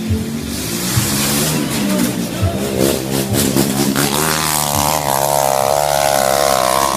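Trail motorcycle engine revving hard on a steep dirt hill climb, its pitch wavering up and down and climbing toward the end.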